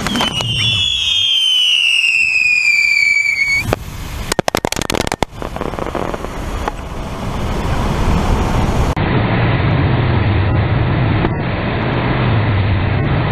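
Rocket motors of a girandola, a flying firework wheel, burning with a steady rushing noise and a low rumble. For the first three and a half seconds a shrill whistle falls slowly in pitch, followed by a short burst of sharp crackles and pops.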